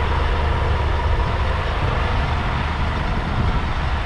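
Scania N250UD bus's five-cylinder diesel engine idling steadily: a constant low rumble with an even mechanical hiss.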